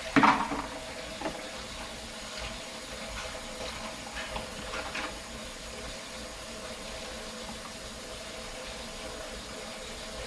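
Dishes being washed by hand in a sink of soapy water: a loud splash and clatter of dishware just after the start, then smaller splashes and knocks every second or so, over a steady faint hum.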